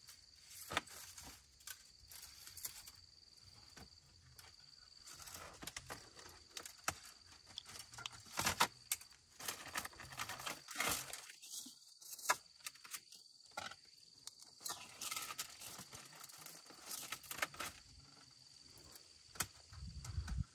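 Irregular clicks, knocks and rustling from hands-on work, over a steady high insect trill.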